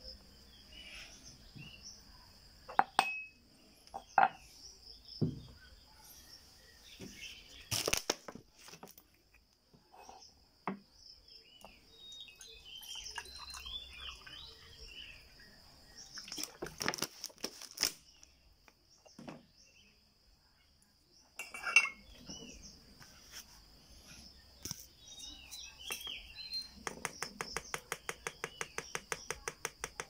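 Aluminium parts of a Luxa Express stovetop moka pot clinking and knocking as they are handled, with water poured into the pot's base midway. Near the end comes a fast, even run of ticks as ground coffee is shaken from a container into the filter basket. Crickets chirp steadily behind.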